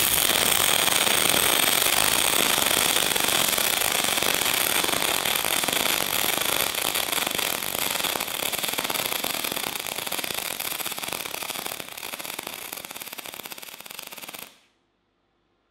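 Welding arc of a Decapower SYNMIG-200 multi-process welder crackling steadily for about fourteen seconds, then cutting off suddenly as the arc is broken.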